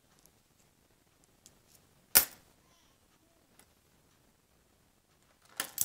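Coins being handled on a hard surface: a single sharp click about two seconds in, a few faint ticks, then a quick run of small clinks near the end as coins are picked up and set down.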